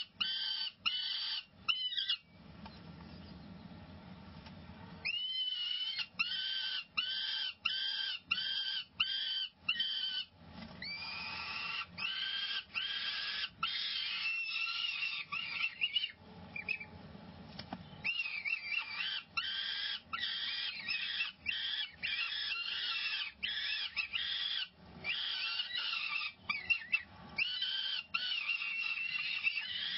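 Peregrine falcon chicks begging for food as they are fed: a string of high screeching calls, about two a second, broken by longer drawn-out wails in the middle and near the end, with two short lulls.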